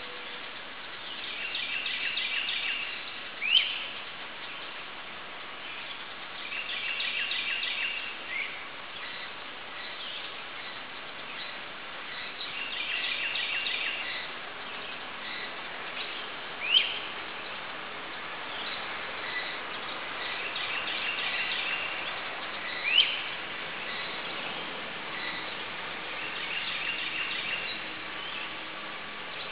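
Wild songbirds singing: a short trilled phrase repeats about every six seconds, and three loud, sharp rising chirps stand out, over a steady hiss of background noise.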